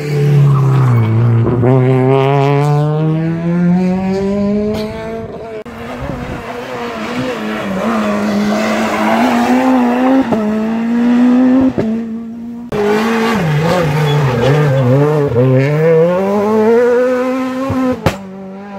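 Rally cars passing on a tarmac special stage, their engines dropping in pitch as they brake into corners and climbing again as they accelerate away, several passes one after another, with some tyre squeal.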